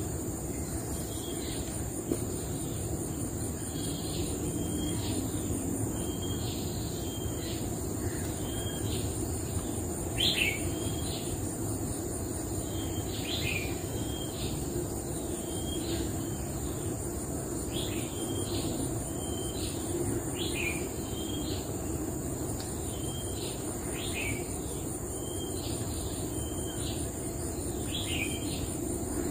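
A bird calling over and over, a short call about once a second, over a steady high-pitched insect drone in tropical forest.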